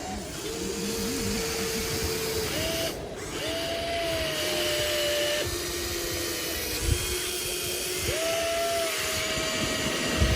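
Electric motors of an RC toy excavator whining as it works. The pitch steps to a new level every second or two as different movements start and stop, and there are a few low knocks.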